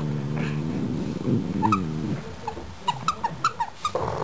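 Pugs growling over a plush toy: a low, wavering growl for about two seconds, then a run of short high squeaks and clicks as they keep tussling.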